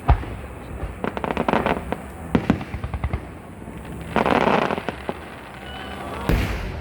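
Fireworks display: aerial shells bursting with sharp bangs and clusters of rapid crackles, a crackling hiss about four seconds in, and a loud bang near the end.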